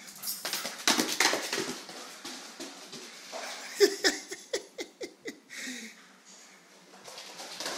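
A German Shepherd's claws clattering and scrabbling on a hardwood floor as it runs and skids, in two quick flurries, with a sharp knock about four seconds in.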